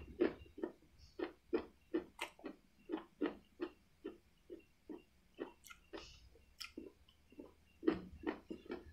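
Close-miked chewing of crunchy food, a rapid, even run of crisp crunches about three times a second, thinning out for a moment near the end.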